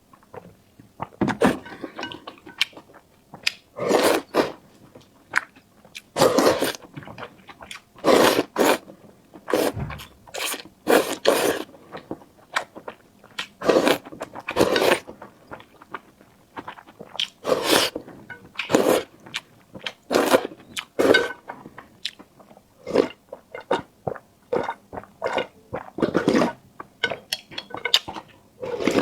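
A person chewing and biting food close to the microphone, in irregular loud bursts a second or two apart.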